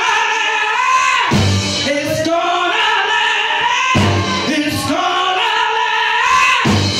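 A woman singing long, wavering held notes into a microphone with a live band, in three phrases with short breaks between them.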